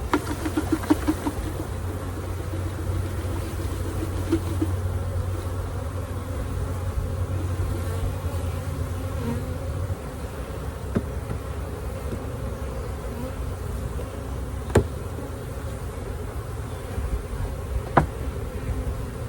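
Swarm of package honeybees buzzing steadily around an open hive. Sharp knocks of wooden hive parts cut through it: a quick run in the first second, then single knocks about eleven, fifteen and eighteen seconds in.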